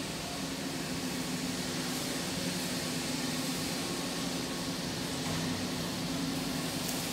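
Steady factory-hall ambience: an even noise over a constant low machinery hum, with no distinct events.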